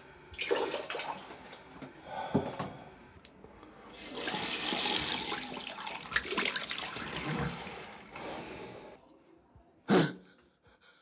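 A bathroom sink tap runs, water splashing into the basin for several seconds while hands are washed under it, then fades out. Scattered knocks come before the water starts, and there is one short, loud sound near the end.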